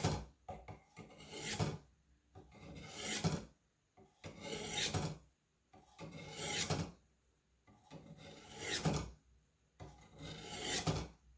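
Buck 119 hunting knife blade drawn repeatedly through a Warthog knife sharpener, giving about six rasping strokes of a second or so each that swell in loudness before stopping, with short pauses between. The strokes are working the blade's tip end to bring it to a point.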